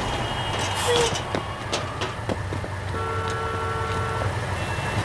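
Road traffic sound of cars in a jam: a steady low engine rumble with scattered small knocks, and a steady pitched tone lasting about a second, starting about three seconds in.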